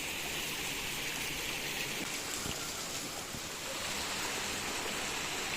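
Stream water running, a steady rushing hiss.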